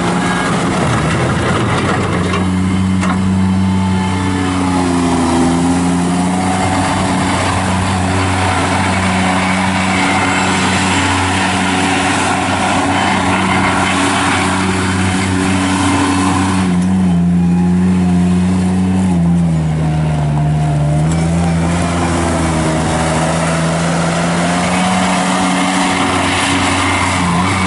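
Avant 420 mini articulating loader's Kubota diesel engine running under load, with a higher whine over the engine note. The engine speed wavers and sags for a few seconds about two-thirds of the way through, then picks back up.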